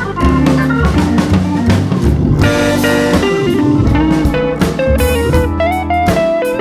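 Background music with guitar and drums: a stepping guitar melody over a steady drum beat.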